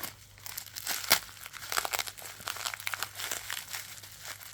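Packaging being crinkled and torn open by hand, a run of irregular crackling rustles with a sharper tear about a second in.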